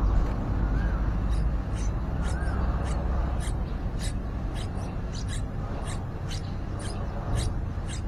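Nestlings begging at the nest: rapid, thin, high-pitched cheeps, about two or three a second, starting about a second in as the parent arrives to feed them. A steady low rumble runs underneath.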